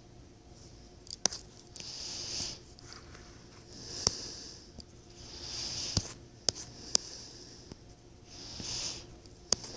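Stylus working on a tablet's glass screen during digital drawing: several sharp taps, with short soft scratchy strokes between them.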